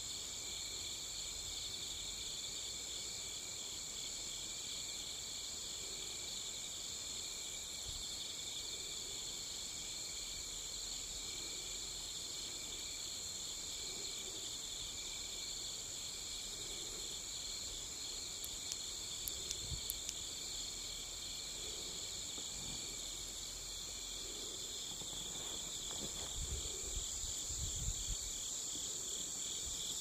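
A night chorus of crickets and other autumn insects: steady, shrill trilling at several pitches at once, unbroken throughout. There are a few faint ticks about two-thirds of the way in and some low thumps near the end.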